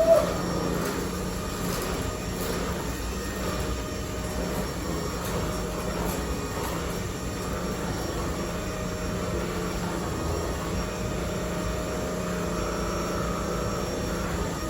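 Cordless stick vacuum running steadily, a constant motor hum and whine with no change in speed.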